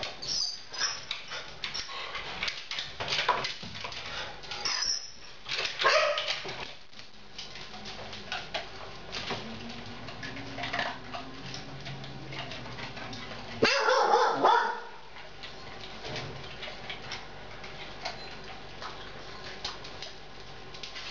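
Dogs on a tiled kitchen floor: scattered small clicks and taps as a dog moves about and eats scraps off the tiles, a low whine near the middle, and a loud bark lasting about a second roughly two-thirds of the way through.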